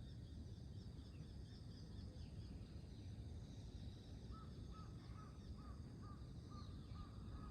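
Faint birdsong over a steady low rumble: scattered high chirps throughout, and from about halfway a bird repeating one short call note over and over, about two or three times a second.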